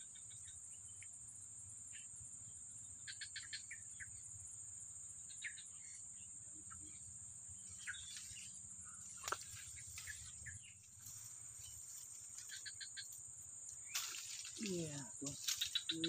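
Insects in the swamp keep up a steady high-pitched drone, with a few short runs of rapid clicking chirps. Near the end a man's voice calls out.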